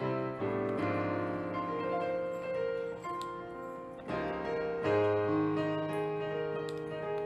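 Piano music: a melody of held notes over changing chords.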